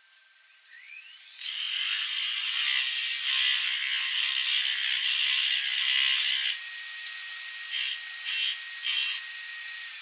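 Wood lathe spinning up with a rising whine, then a turning tool cutting the spinning oak disc in one long scraping pass of about five seconds. Three short cuts follow near the end, decorative grooves being cut into the face, over the lathe's steady whine.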